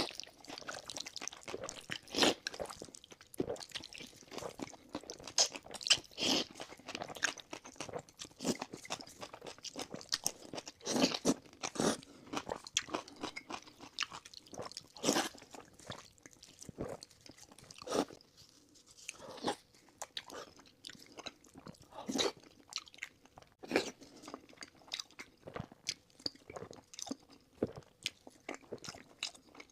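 Close-miked eating: irregular crunchy bites and wet chewing of noodles and fried pork.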